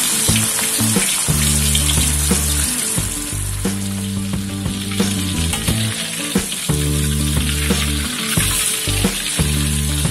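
A skin-on fish steak deep-frying in hot oil in an aluminium wok, with a steady loud sizzle and many small crackles. In the second half a metal spatula works the fish against the wok. Background music with steady low notes plays underneath.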